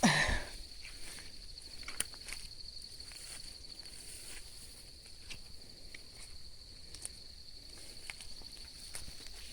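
Steady high-pitched insect drone from the surrounding bush, with a few faint clicks of footsteps through the undergrowth.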